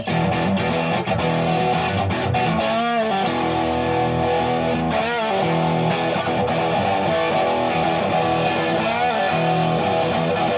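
Electric guitar played through an AMT Electronics California Sound distortion pedal: held overdriven chords and notes, with a few notes bent in pitch, around three, five and nine seconds in.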